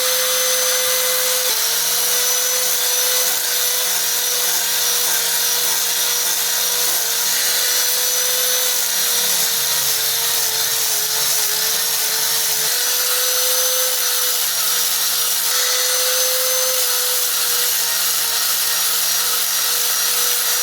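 Handheld electric power tool sanding wooden planks smooth, its motor running steadily with a high whine over a gritty hiss. The pitch dips and wavers for a few seconds in the middle as the tool is worked against the wood.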